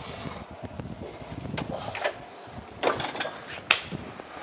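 Metal muffin tin slid onto an oven rack and the rack pushed in, giving a series of clunks and knocks, ending with a sharp knock a little before the end as the oven door shuts.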